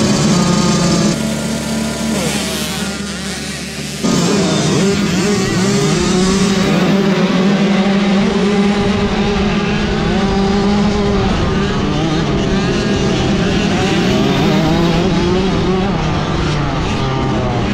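A gate full of 65cc two-stroke youth motocross bikes revving at the start line; about four seconds in the gate drops and they all launch at full throttle, the rider's own engine loudest, its pitch climbing and falling as it pulls away with the pack.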